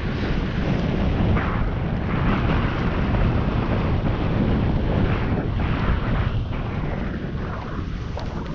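Wind buffeting the microphone: a loud, steady rushing noise with no distinct events.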